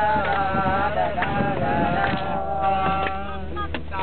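A voice singing a melody with long held notes over a beat, heard inside a moving bus with the engine's steady low drone underneath.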